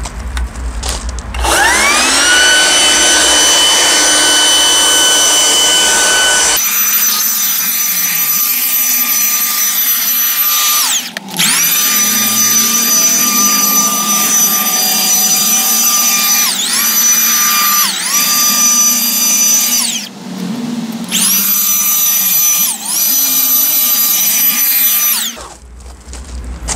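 Kaltmann Titanium 40V brushless leaf blower/vacuum running at maximum power. Its motor spins up with a rising whine, then runs as a steady high whine. Several times the whine drops briefly and climbs back up.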